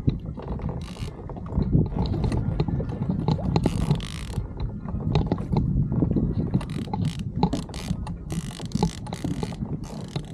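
Fishing reel clicking and grinding in rapid strokes as a big fish hooked on a live bait is fought from a kayak, with short bursts of rushing noise about a second in and again near the middle.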